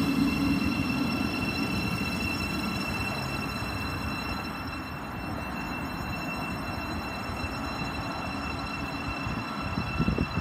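Siemens Class 700 electric multiple unit pulling out and moving away, its steady high-pitched whine and low running rumble fading as it goes. A few knocks near the end.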